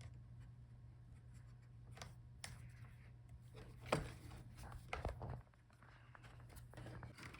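A few faint, sharp clicks and taps of hands and tools working the laptop's plastic hinge cover, over a faint steady low hum.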